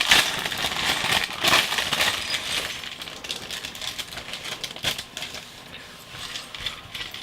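A plastic LEGO polybag being opened and crinkled, with small plastic bricks clicking and clinking against each other. The rustling is busiest for the first two or three seconds, then thins to scattered clicks.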